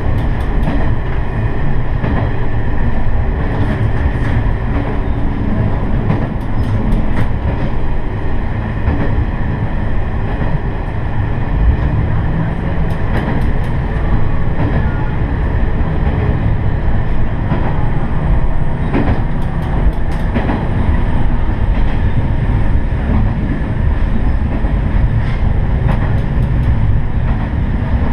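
Diesel railcar running along the line: a steady low rumble with wheels clicking over rail joints in small groups every several seconds.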